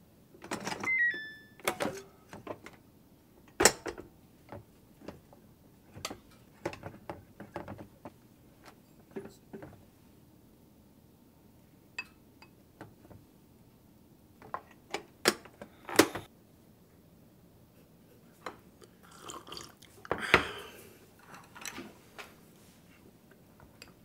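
Chopsticks, a rice paddle and ceramic dishes clicking and tapping in a series of separate knocks as kimchi is picked up and cooked rice is scooped from a rice cooker into a bowl. There is a louder clatter of dishes near the end, and a short run of falling electronic beeps about a second in.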